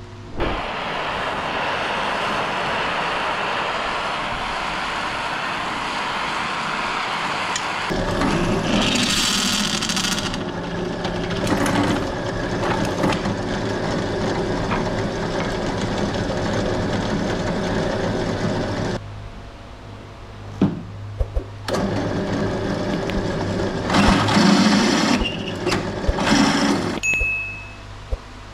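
Bench drill press running and drilling through the steel tang of an old machete, a steady motor and cutting noise with harsher spells as the bit bites. It drops off for a few seconds in the last third, drills again, then stops near the end.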